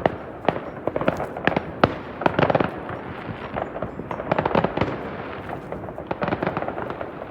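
New Year's fireworks going off all around: many irregular bangs and pops, some near and some far, over continuous crackling.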